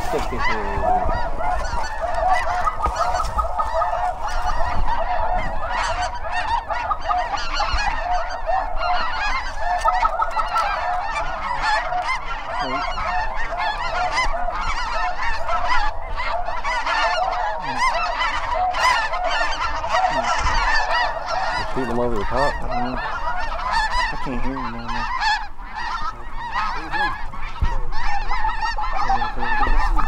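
A large flock of snow geese calling overhead: a dense, unbroken chorus of many overlapping honking calls.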